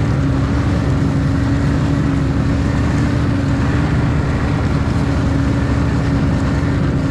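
Snowmobile running at a steady speed: an even engine drone with a constant, unchanging whine over track and trail noise.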